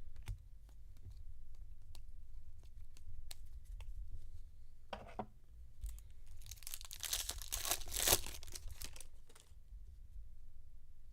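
Foil wrapper of a trading card pack being torn open and crinkled, a dense tearing noise lasting about three seconds from a little past the middle, with scattered light clicks of cards being handled before and after.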